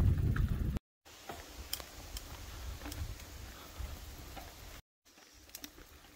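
Bicycle riding on a dirt trail: a loud wind rumble on the microphone that cuts off suddenly, then quieter rolling noise with scattered light ticks and clicks.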